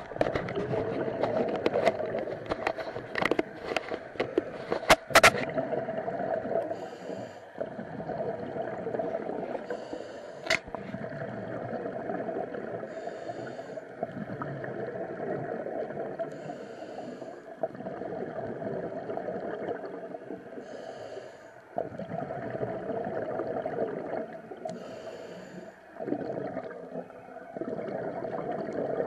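Underwater sound: a steady hum, with a scuba diver's regulator breath hissing about every three to four seconds. A cluster of sharp clicks and knocks comes in the first five seconds, the loudest about five seconds in.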